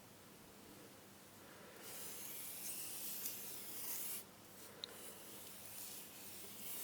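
Faint rubbing and scratching for about two seconds, with a brief tick near the end.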